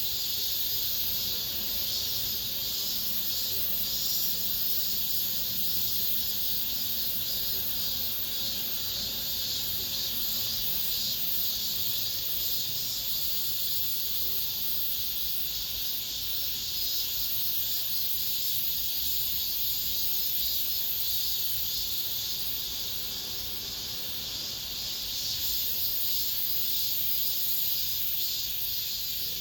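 Chorus of cicadas singing: a steady, high buzzing hiss that holds without a break.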